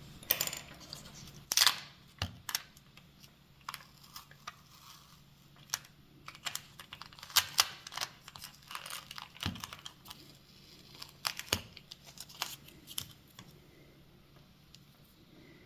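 Old adhesive battery sticker being peeled off the battery bay of a Nintendo Switch: irregular crackling and tearing with sharp ticks, dying away near the end.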